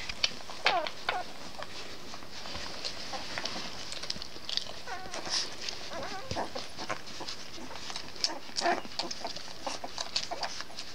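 Ten-day-old Labrador puppies suckling from their mother: a scatter of brief high squeaks, some falling in pitch, mixed with many small wet clicks of nursing.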